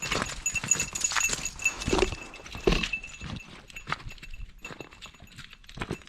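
Irregular footsteps and crunching through woodland brush, likely from the dogs and the walker moving, with knocks at uneven intervals. A faint steady high-pitched tone runs through the first half.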